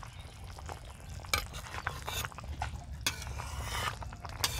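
A spatula stirring a simmering curry in a metal karahi, scraping and knocking against the pot in a few short strokes over a low steady rumble.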